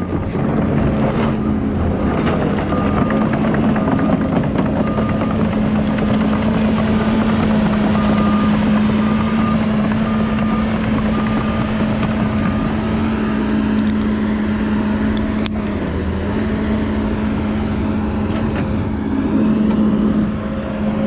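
Kobelco 210 excavator's diesel engine running steadily under work, with a repeated short beeping for about the first twelve seconds and a single sharp click about fifteen seconds in.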